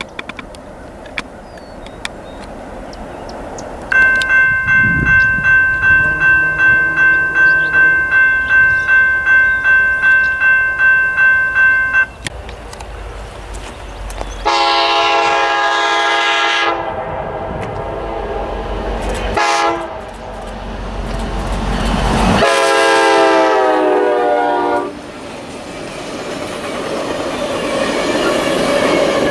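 Grade-crossing bell ringing steadily for about eight seconds. Then the air horn of the lead EMD F9A locomotive blows two long blasts several seconds apart as the train approaches, and the train's rumble builds near the end.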